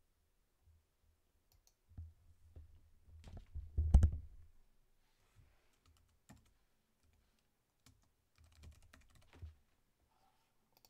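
Scattered clicks and knocks over low thuds, in two clusters: a busier run from about two seconds in, with the loudest knock about four seconds in, and a shorter run near nine seconds.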